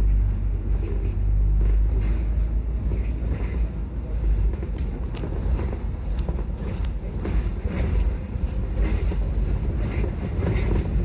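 Volvo double-decker bus heard from inside the upper deck: a continuous low engine rumble with road noise. A few sharp clicks or rattles come about five seconds in.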